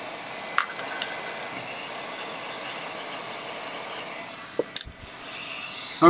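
Heat gun blowing steadily while it shrinks heat-shrink tubing onto a cable joint, with a few light clicks and a couple of knocks near the end.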